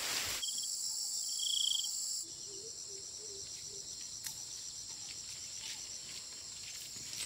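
Steady, high-pitched chorus of insects chirping, with a short high note about one and a half seconds in; the chorus drops a little in level about two seconds in.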